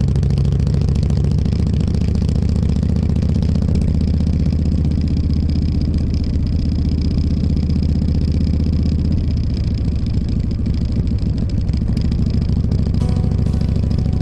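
Motorcycle engine running steadily while riding, its note shifting slightly about two-thirds of the way through.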